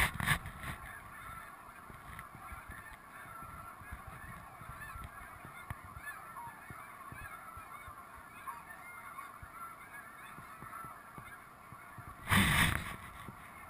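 A flock of snow geese calling, a busy chorus of many high, yelping honks that never stops. A short, loud burst of noise cuts in about twelve seconds in.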